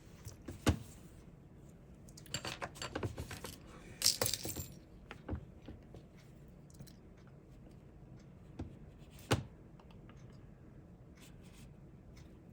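Light clicks and small rattles of tiny plastic and metal parts being handled as an HO slot car chassis is taken apart, with a cluster of rattling in the first few seconds and one sharper click about nine seconds in.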